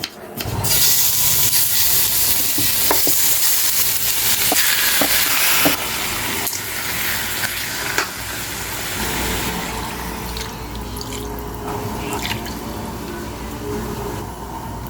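Kitchen tap running into a sink: a loud rushing hiss that starts suddenly just after the start and drops sharply about six seconds in, then a quieter flow with scattered clinks.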